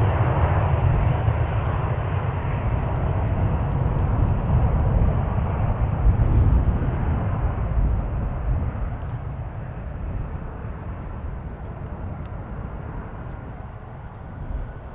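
Jet airliner engines rumbling as the plane passes and then gradually fades away, with wind buffeting the microphone.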